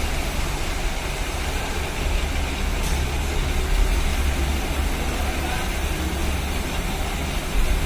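Steady low rumble of a vehicle engine idling, with no distinct knocks or squeaks standing out.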